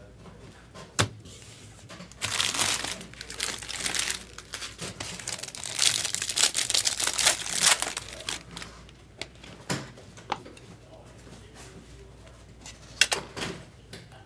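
Foil wrapper of a trading-card pack crinkling and tearing as it is opened by hand, a dense crackle from about two seconds in until about eight seconds in. A few single sharp clicks come before and after it, from plastic card holders being handled.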